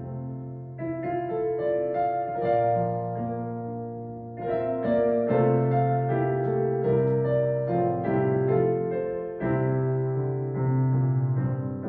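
Piano playing a slow piece, chords changing about once a second over long held bass notes.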